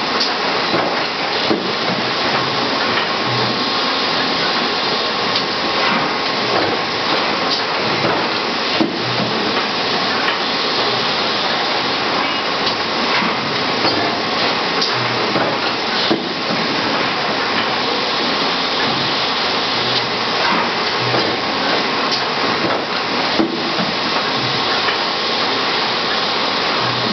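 Thermoforming and router-trimming machinery running: a loud, steady rushing noise like vacuum or dust extraction, with a low pulse every few seconds and occasional sharp knocks.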